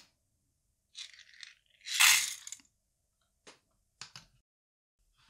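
Small lead shotgun pellets tipped from a digital scale's weighing cup into a metal tin lid, making one short clatter about two seconds in after a softer scrape. A few light clicks follow.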